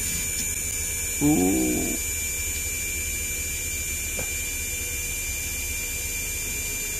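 Small electric hydraulic pump running steadily with a low hum and a high whine, pressurising a rebuilt HWH slide-out cylinder on a bench test so that its rod extends. A brief higher-pitched note sounds about a second in.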